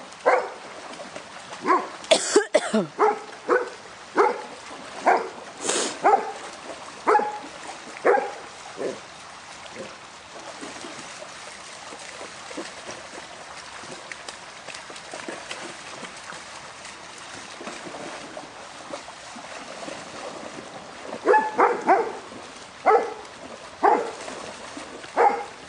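A dog barking repeatedly at dogs playing in a river, over the steady rush of the stream. The barks come in a run of one or two a second, stop for about ten seconds, then start again in a quick burst near the end.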